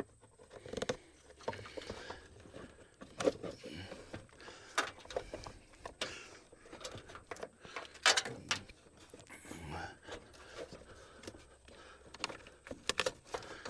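Hands handling parts in an engine bay: scattered irregular clicks, knocks and scrapes as a plastic air box is worked down over rubber grommets.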